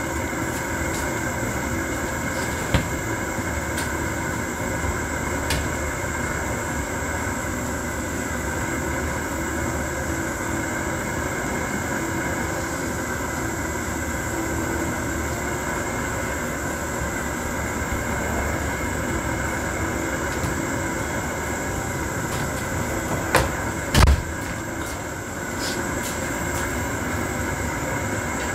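Propane camp-stove burner running steadily on high heat under a pan of soup, with a few sharp knocks, the loudest about 24 seconds in.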